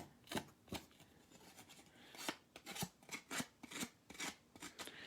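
Scissors roughing up the edge of a piece of paper, a string of short, faint scratchy strokes at irregular intervals.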